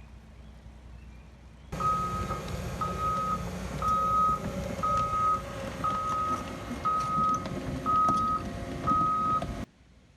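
Reversing alarm of a heavy construction vehicle, a single steady beep repeating about once a second, eight beeps in all, over the low rumble of its engine, with a few knocks. The sound starts abruptly a couple of seconds in and cuts off abruptly near the end, after a quieter low rumble.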